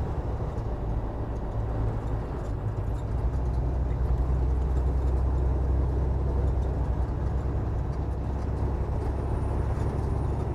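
Semi truck's diesel engine droning steadily at road speed, heard from inside the cab, with tyre and road noise over it. The drone swells slightly in the middle.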